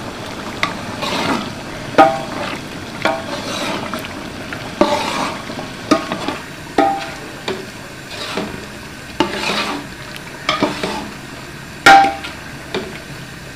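Long metal ladle stirring onions, tomatoes and spices in oil in a large metal cooking pot, knocking and scraping against the pot with short ringing clinks every second or so, over a soft sizzle of frying.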